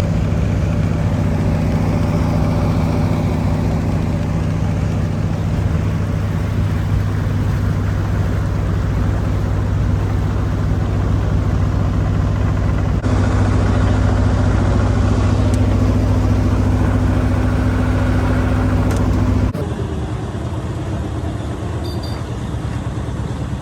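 Tourist dragon boat's inboard engine running steadily, a low droning hum. The sound changes abruptly about 13 seconds in and drops to a quieter level about 19 seconds in.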